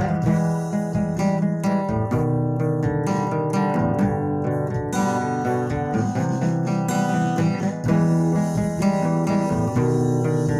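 Acoustic guitar strummed in an instrumental break of a song, with no voice.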